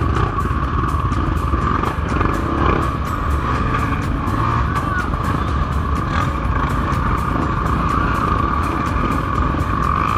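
Several dirt-bike engines running, under background music with a steady beat.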